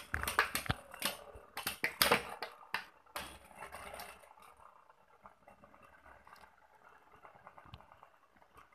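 Two Beyblade spinning tops clashing and rattling against each other and the walls of a plastic stadium, a quick run of sharp clicks for about three seconds. Then there is only a faint sound with an occasional tick as they spin on.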